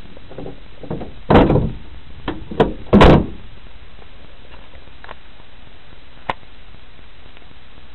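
A car bonnet being brought down and shut: two heavy thuds about a second and a half apart, with lighter knocks between them, and a single sharp click about six seconds in.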